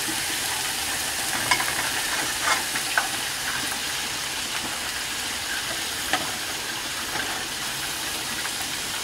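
Steady sizzle of oil frying in a hot skillet under a bitter melon and egg omelette, with a few sharp taps of a wooden spatula against the pan and plate as the omelette is scooped out.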